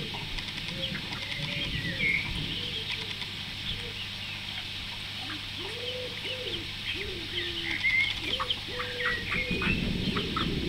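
Silkie chicks peeping: many short, high cheeps throughout, with a few lower, longer arching calls between about six and nine seconds in.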